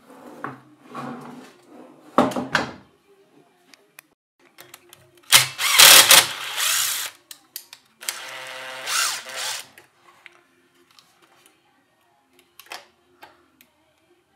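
Cordless power drill running in several short bursts, the longest about halfway through, with small clicks and knocks of parts being handled in between.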